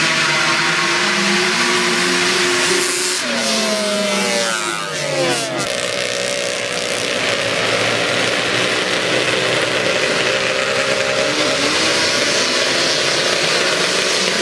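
Racing ATV engines revving at the start of a dirt drag race, with a steady engine drone throughout and one engine's pitch falling sharply about four seconds in.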